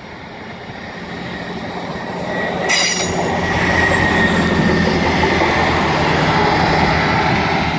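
A Class 158 diesel multiple unit running through a level crossing, getting louder as it nears and then passing close by with a steady engine drone. About three seconds in, the wheels let out a brief high squeal, followed by a thinner high ring that fades over the next two seconds.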